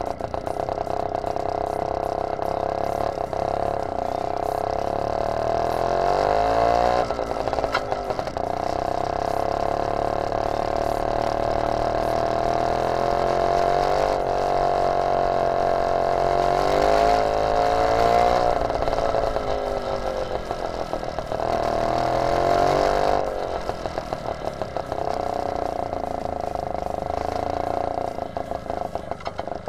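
Homemade go-kart's small engine running under way, its pitch rising and falling a few times as the throttle is opened and eased off. The ride is on a cold winter engine.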